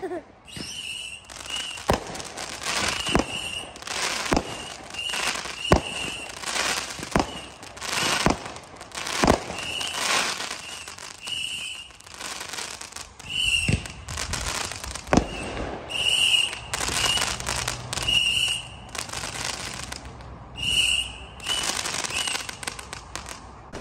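Fireworks going off in a rapid barrage: sharp bangs about once or twice a second, mixed with short high whistles.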